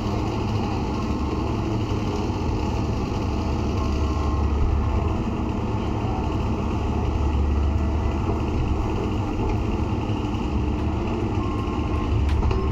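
Excavator's diesel engine running steadily under work, a dense continuous rumble, with a few faint short beeps now and then.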